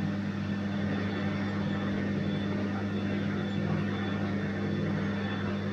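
Bosch washing machine running, a steady low hum with an even whooshing haze over it and no change in pitch or level.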